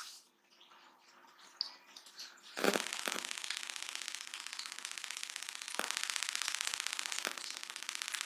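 Close-miked eating by hand: fingers mixing rice with chana dal and chewing. A sharp click at the start, then from about two and a half seconds in a dense, steady crackle.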